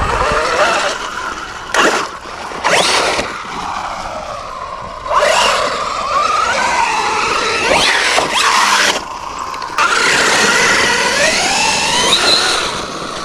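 Losi Super Rock Rey RC truck's electric motor whining up in pitch several times as the throttle is punched, over rough tyre noise on dirt and gravel. The wheels are struggling for traction.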